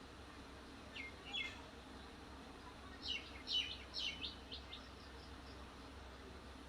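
Small bird chirping: two short calls about a second in, then a quick run of falling chirps from about three to five seconds in, over a faint steady low hum.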